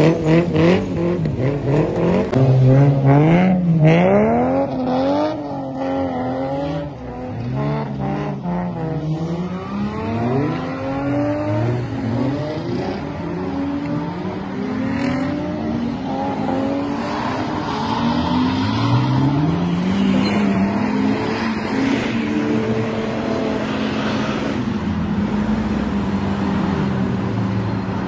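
Car engines revving hard and dropping back over and over while the cars drift sideways, the engine note rising and falling many times.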